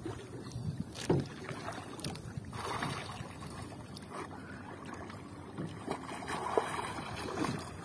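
Sea water splashing and lapping around a small outrigger boat as swimmers move beside it, with a few short, sharp splashes.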